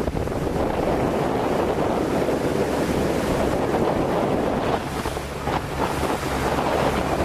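Strong 25–30 knot wind buffeting the microphone, with choppy water rushing and splashing around the boat in a dense, steady roar that swells in a few gusts.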